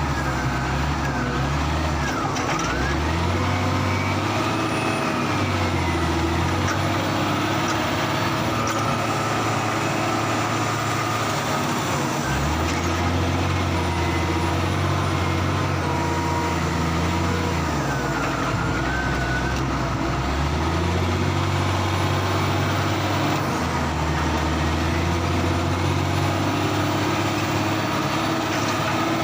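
Heavy diesel engine of a Cat 966G wheel loader at work, revving up and dropping back to a lower speed about three times in a cycle, with a faint wavering whine above the engine.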